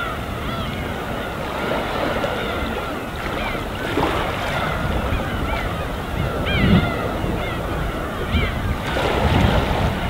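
A large flock of gulls calling, many short overlapping cries, with a burst of louder cries about two-thirds of the way through, over the steady wash of calm sea waves.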